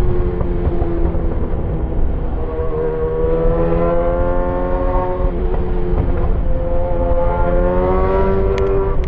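Yamaha XJ6's inline-four engine through an SC-Project aftermarket exhaust, accelerating up through the gears. The engine note climbs, drops at a gear change about five seconds in, climbs again and drops at another shift near the end.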